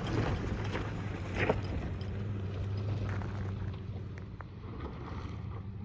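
Pickup truck engine running low and steady, with a few short sharp knocks and clicks over it.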